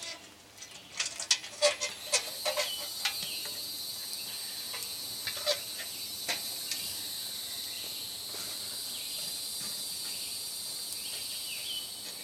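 A run of sharp clinks and knocks in the first few seconds as glowing charcoal briquettes are tipped from a metal chimney starter and shifted with tongs on a cast-iron Dutch oven lid. After that a steady high-pitched insect chorus takes over, with a few faint clinks of the tongs on the coals.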